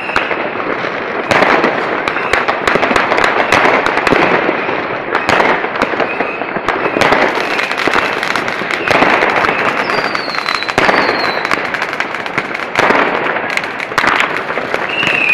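Many fireworks and firecrackers going off at once: a dense, continuous crackle of bangs and pops, with a couple of short falling whistles about ten seconds in.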